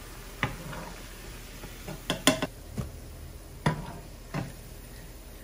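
A metal slotted spoon clinking and knocking against the frying pan and cookware a handful of times, scattered short hits over a steady low background.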